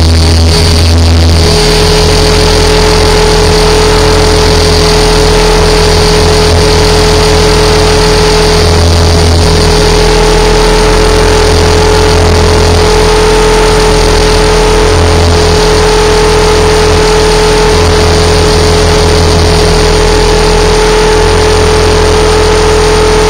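Align T-Rex 550 electric RC helicopter in flight, heard from a camera mounted on its frame: loud, steady whine from the motor and drive gears over the hum of the spinning rotors, held at a constant head speed.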